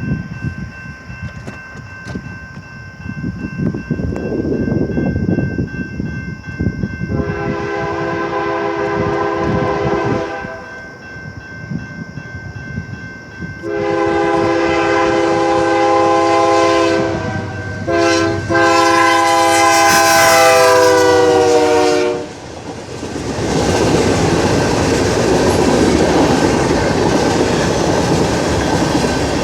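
CN freight locomotive's air horn: a short blast, then a long blast with a brief break, its chord dropping in pitch near the end as the locomotive passes. The train then rolls by loudly with wheels clacking over the rail joints.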